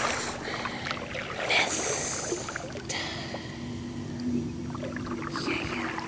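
Water splashing and sloshing around a kayak as it is paddled, with a few small knocks.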